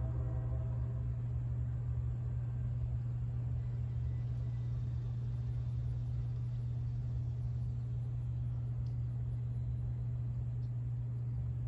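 Low, steady rumble of a freight train's diesel locomotives running, with a fainter engine note fading out about a second in.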